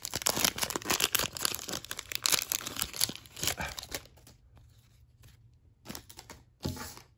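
Foil wrapper of a Panini Prizm trading card pack being torn open and crinkled for about four seconds, then quieter, with a few more crinkles near the end.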